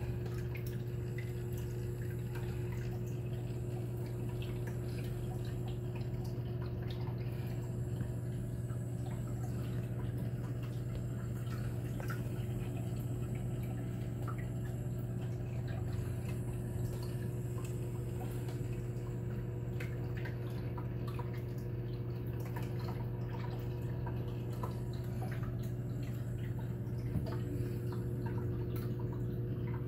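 Reef aquarium equipment running: a steady low pump hum, with water trickling and dripping.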